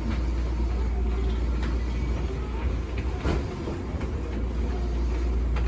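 Cabin sound of a former Tokyo Metro 6000-series electric train running slowly: a steady low rumble of the running gear with a faint steady motor hum, and a few sharp wheel knocks over rail joints.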